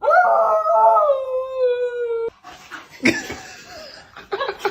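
A dog howling: one long howl of about two seconds, its pitch slowly falling, cut off suddenly. It is followed by quieter, rougher sounds with short cries.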